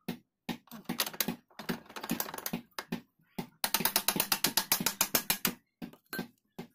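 Sharp metallic clicking from tools working the swing arm pivot bolt on a Honda XR200 frame. The clicks are irregular at first, then come in a fast, even run of about ten a second through the middle.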